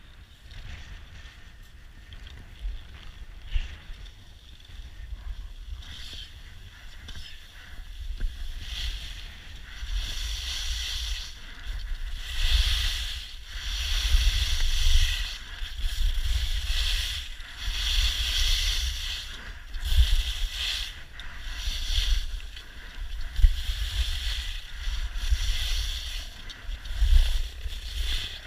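Skis carving and scraping over packed snow in a run of turns, a swell of hissing about every two seconds, with wind rumbling on the microphone. It grows louder about a third of the way in.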